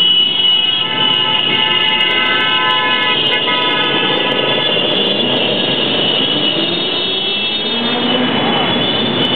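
Many motorcycles running together in a slow group ride, their engines blending into a continuous drone. A horn sounds for about three seconds near the start.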